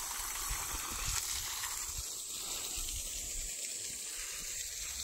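Water spraying from a garden hose onto wet soil around saplings, a steady hiss.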